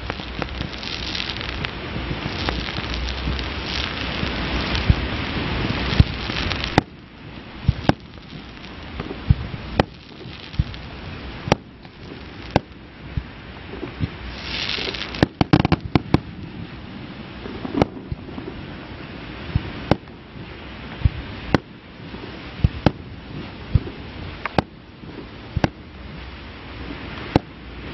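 Aerial fireworks display: dense crackling for the first seven seconds or so. Then a long string of sharp bangs from bursting shells, roughly one a second, with a short hiss near the middle.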